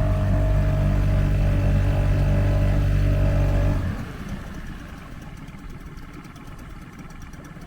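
Small outboard motor on a dinghy running steadily at constant speed, then cutting off abruptly about four seconds in, leaving a quieter rushing noise.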